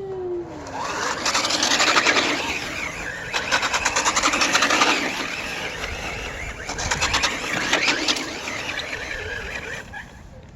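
Ryobi 18-volt battery-powered RC car driving, its electric motor whining and its tyres rasping over the ground. It builds up about a second in, eases off around the middle, and surges again near seven seconds.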